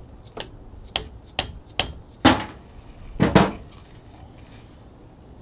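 About six hammer blows struck on an adjustable wrench clamped to a seized change-gear nut on an old South Bend lathe, the last two the loudest. A wooden block is wedged in the gear teeth to hold the gear while the nut is knocked loose.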